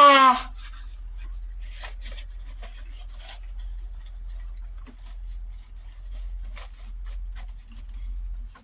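Food being chewed with the mouth close to the microphone: soft, irregular wet clicks and smacks over a steady low hum. A brief loud vocal sound comes at the very start.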